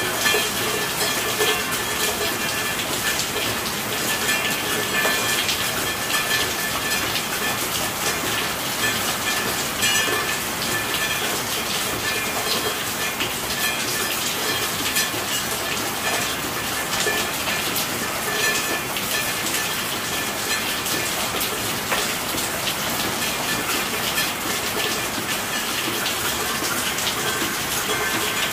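Steady rain falling hard, a dense stream of small drop impacts over a constant hiss.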